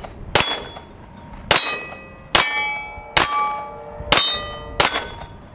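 Six 9mm shots from a Canik TP9 SF Elite pistol, fired in a steady string less than a second or so apart, each followed by the ringing clang of a steel target being hit.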